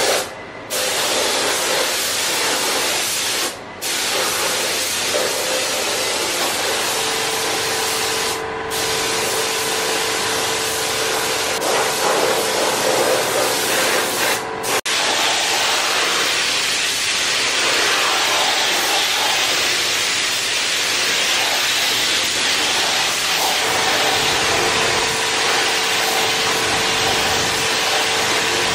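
Gravity-feed air spray gun hissing steadily as it sprays clear coat onto motorcycle body panels, with a few short breaks in the spray. A steady hum runs under it for stretches.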